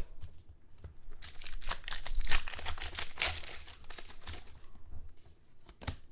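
Crinkling and tearing of a trading-card pack's foil wrapper being ripped open and handled, a dense run of crackles for about three seconds, then a few scattered rustles and clicks near the end.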